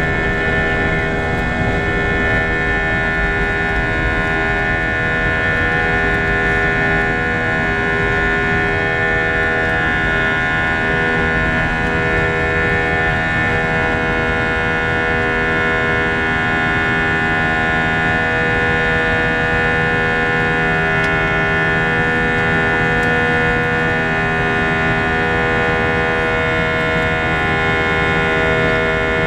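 Airbus A321 jet engines at climb power, heard inside the cabin during the climb just after lift-off. The engine noise is steady, with several fixed whining tones over a low rumble.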